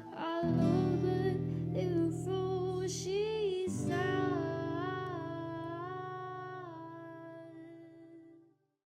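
Background music: a melody of held, wavering notes over sustained low chords, fading out and stopping near the end.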